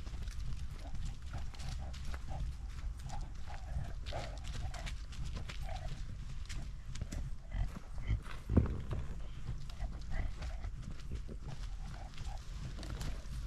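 Mini shar-pei trotting over dry leaves and twigs, its paws crackling in a quick rhythm and its breathing close to the harness-mounted camera, over a low rumble of mount and handling noise. One louder thump comes about eight and a half seconds in.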